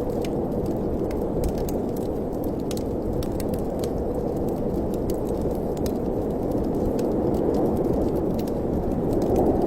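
Fireplace fire crackling with scattered sharp pops over a steady low rush of wind, which swells a little near the end.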